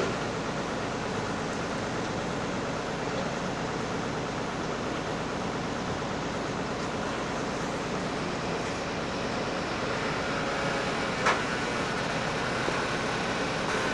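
Amphibious excavator's diesel engine running steadily, with a single sharp knock about eleven seconds in.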